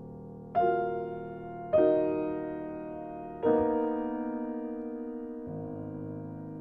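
Slow solo piano music: three chords struck about a second and a half apart, each left to ring and fade, then a softer chord change near the end.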